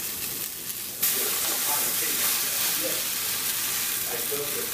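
Potato pancake batter sizzling in hot Crisco shortening in a stainless steel frying pan. About a second in, the sizzle suddenly gets louder as another spoonful of batter goes into the hot fat, and it stays loud.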